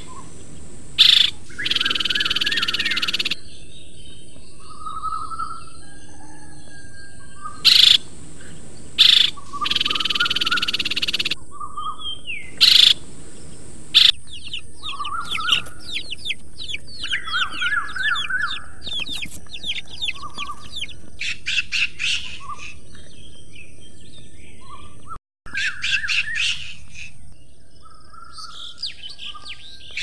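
Small birds chirping, with a fast run of rapid chirps in the middle and a few sharp clicks in the first half.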